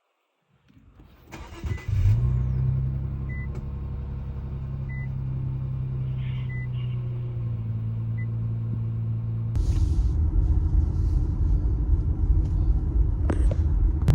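A 2018 Infiniti Q50's engine starting about two seconds in and then running steadily, with a dashboard warning chime beeping about every second and a half. About two-thirds of the way through, the engine sound becomes louder and fuller.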